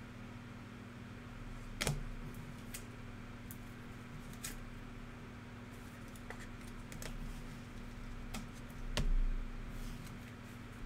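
Trading cards and card packs being handled on a table: scattered light clicks and taps, sharpest about two seconds in and again near the end, over a steady low electrical hum.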